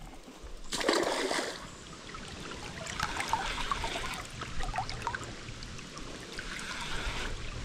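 Shallow river water trickling and babbling over a riffle, with many small bubbling ticks. A brief louder burst of noise about a second in.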